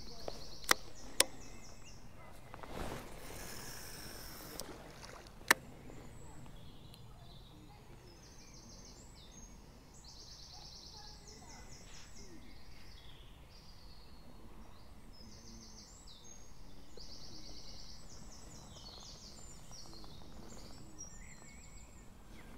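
Quiet outdoor ambience over calm water. A few sharp clicks come in the first few seconds, and small birds trill briefly again and again in the background.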